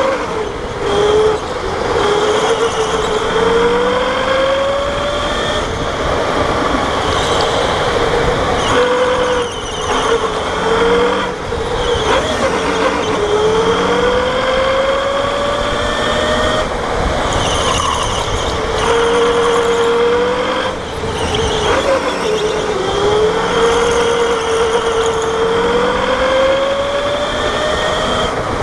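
Electric go-kart motor whining, its pitch rising as the kart accelerates out of each corner and dropping back as it slows for the next, several times over, with a steady high-pitched whine above it.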